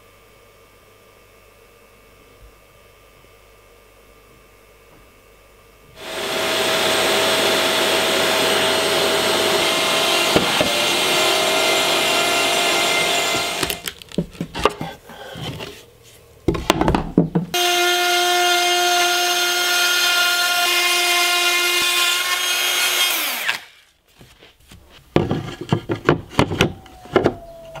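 Handheld CNC router (Shaper Origin) milling a rectangular opening in a board: about six seconds in the spindle starts with a steady high whine over the cutting noise. It breaks off for a few seconds, then runs again and winds down, followed by a few knocks as the insert plate is set into the cutout.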